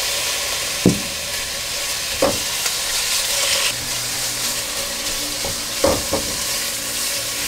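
Shrimp, squid rings and fish pieces sizzling steadily in sesame oil in a wok as they are stirred. A spatula knocks against the pan a few times.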